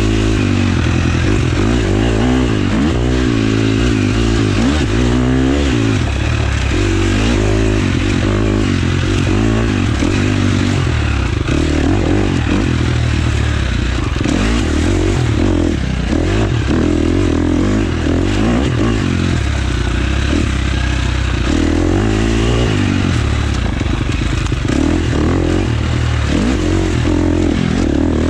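Husqvarna FX 350 dirt bike's four-stroke single-cylinder engine under hard riding, its pitch rising and falling again and again as the throttle opens and closes.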